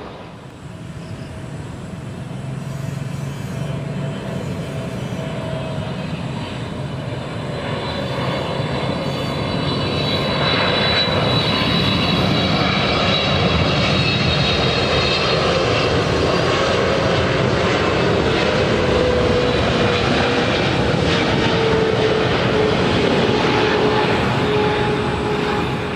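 Jet engines of a Saudia Boeing 777-300ER (GE90-115B turbofans) on final approach, growing louder over the first dozen seconds, then loud and steady with a high whine. Near the end a tone slides lower in pitch as the airliner goes by.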